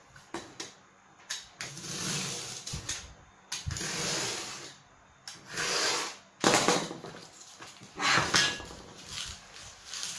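Snap-off utility knife drawn through corrugated cardboard along a metal ruler, several scraping cutting strokes of about half a second to a second each, with short knocks of cardboard and ruler being handled between them.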